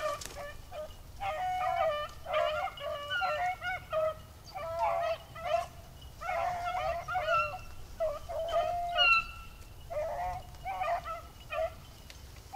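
Pack of beagles baying as they run a rabbit's track: short, overlapping calls from several hounds in quick, irregular bursts.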